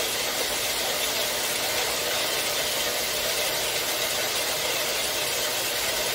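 4x6 horizontal metal-cutting bandsaw running, its cheap 18-teeth-per-inch blade sawing through a bundle of 11-gauge steel square tubing: a steady, even cutting noise.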